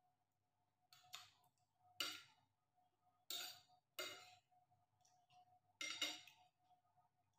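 Metal fork and spoon clinking and scraping against a ceramic plate during a meal, about five short clinks a second or so apart.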